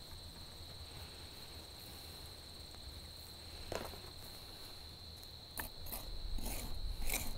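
Steady high-pitched chorus of insects in the grass, likely crickets. From about three-quarters of the way in, a metal trowel scrapes and scratches at the trench soil in short, irregular strokes.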